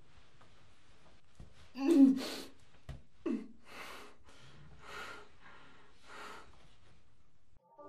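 A person's voice: a loud gasp with a falling pitch about two seconds in, a shorter one about a second later, then three slow, heavy breaths about a second apart.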